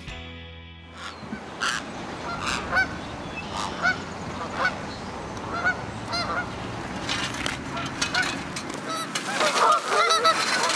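A flock of Canada geese honking: scattered single honks at first, then a busier run of overlapping honks near the end.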